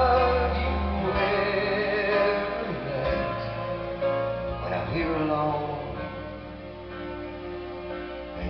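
A pop song with a male vocal over instrumental backing, playing from a vinyl record on an MCS Model 6502 turntable made by Technics.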